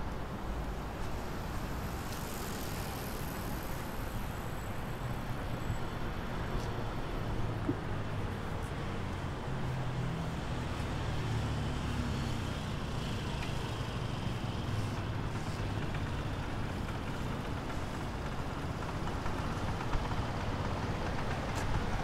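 Road traffic: a steady low rumble of cars passing on the street, swelling a little about halfway through.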